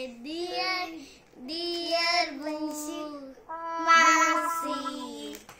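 Young girls singing a birthday song in long, drawn-out held notes.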